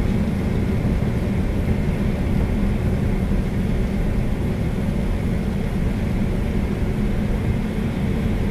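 Steady low rumble of a car driving, heard from inside the cabin: engine and road noise with the hiss of tyres on a wet road, even throughout.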